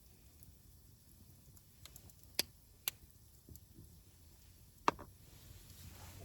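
Three sharp clicks against a quiet background: two about half a second apart, then a third, the loudest, about two seconds later.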